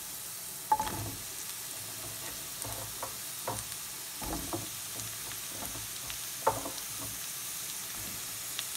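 Oil sizzling steadily in a non-stick frying pan around freshly added sweet potato sticks, with a few sharp knocks in the pan, the loudest about a second in.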